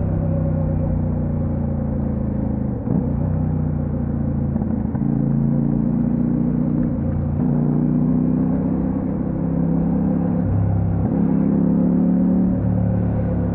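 Kove 800X Pro's parallel-twin engine running under way, its note shifting in pitch a few times, with a short dip in level about three seconds in.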